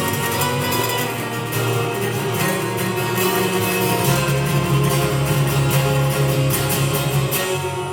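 Guitar music without singing, an instrumental passage of a live song, with a low note held from about four seconds in until near the end.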